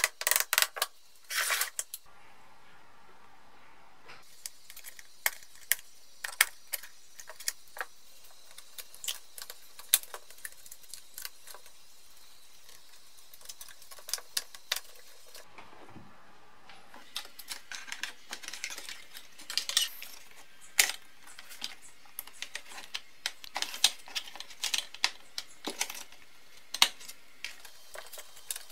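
Hard plastic parts of a BMW E30 heater/air-con housing clicking and tapping as they are handled and fitted together by hand. The clicks are scattered and irregular, louder and denser in the first couple of seconds.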